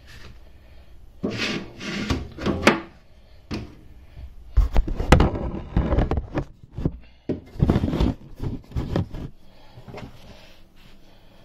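Handling noise from a phone being picked up and repositioned: irregular rubbing, knocks and bumps against the microphone and nearby surfaces, loudest in a few heavy thumps around the middle.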